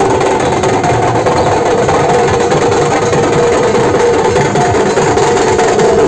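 Loud music with drums and percussion under held, steady tones, playing without a break.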